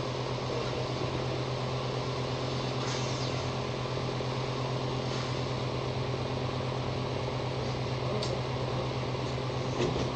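Steady low hum with an even rushing of air, as from a running electric fan, with a couple of faint clicks near the end.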